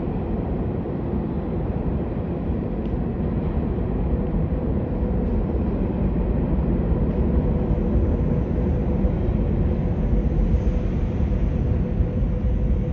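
New York City subway train running in the tunnel: a loud, steady low rumble with a faint steady hum. It grows a little louder about halfway through.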